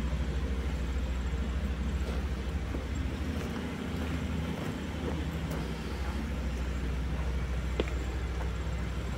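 Diesel engine of a Cometto girder transporter running steadily, a low even hum.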